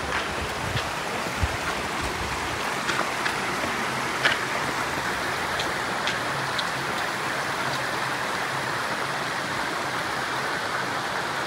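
Creek water flowing over shallow rock ledges, a steady rushing noise, with a few small clicks and splashes in the first half.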